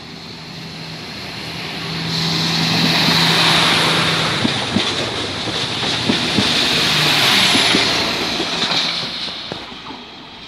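NEB Bombardier Talent diesel railcar (VT 736) pulling away and passing close by. A steady engine drone swells into a loud rushing rumble as the train goes past, with wheels clicking over rail joints in the middle, then fades as it moves off.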